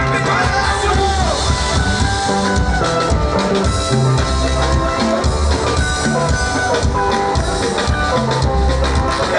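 Loud amplified music with a driving drum kit and deep bass beat, with guitar and other instruments over it and no singing.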